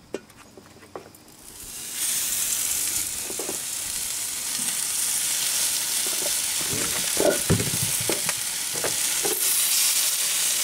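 Water-soaked ears of corn in their husks sizzling on a hot grill grate. The steady hiss starts about two seconds in, with a few dull knocks as more ears are laid on the grate.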